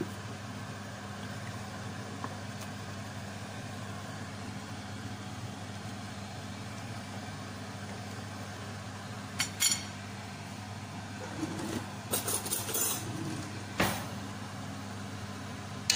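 A metal spoon clinking against a pot of simmering chicken broth: a couple of clinks about halfway through and a quick cluster a few seconds later, over a steady low hum.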